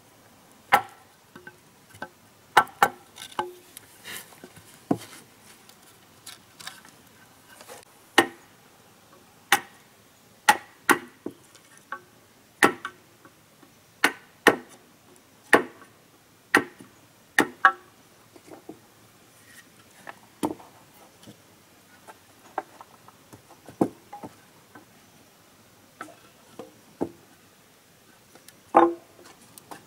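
Irregular sharp wooden knocks and taps, roughly one every second or two, some with a short pitched ring, from hand work on wooden pieces.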